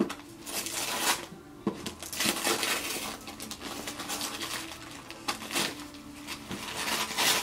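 Wrapping paper being torn and crumpled off a small gift box by a child's hands, a series of short rips and crinkles.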